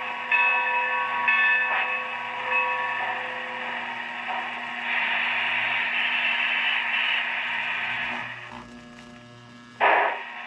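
Onboard sound effects of a standing Lionel O gauge General steam locomotive: pitched ringing strikes about once a second that die away a few seconds in, then a steam hiss, then a steady low hum, with a sudden short loud burst near the end.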